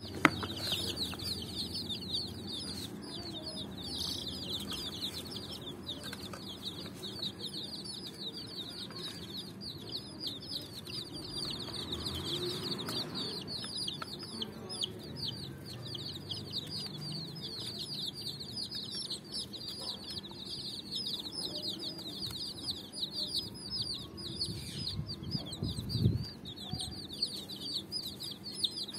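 Several baby chicks peeping without pause, a dense chorus of quick, high, downward-sliding chirps. A soft knock is heard near the end.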